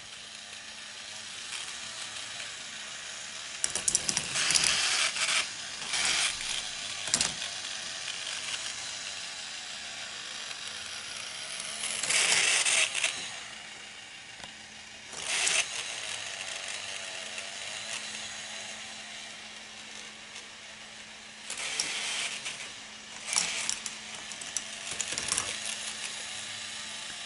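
K'nex ball machine running: a steady motor whir, broken again and again by loud clattering as balls roll and drop through the plastic pieces. The biggest bursts of rattling come about four, twelve, fifteen and twenty-two seconds in.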